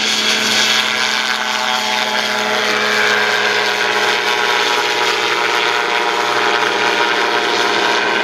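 Aerolite 103 ultralight's two-stroke engine and pusher propeller running at steady high power as the aircraft flies low past and climbs away, with an even, unchanging pitch.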